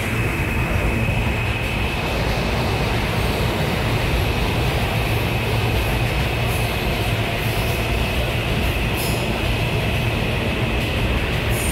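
New York City subway train running through a station: a steady, loud rumble of wheels on rail with a thin high squeal held throughout, and a few brief high metallic squeaks near the end.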